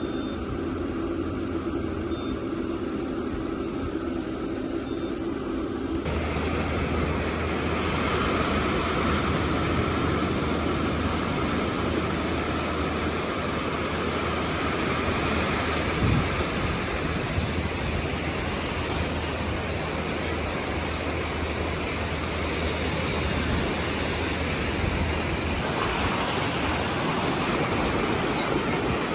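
Steady rushing noise of ocean surf and wind with a low rumble underneath. It starts with a steadier droning hum for about six seconds, which cuts off abruptly.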